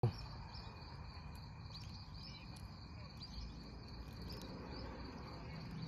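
Crickets trilling steadily, with a low rumble underneath.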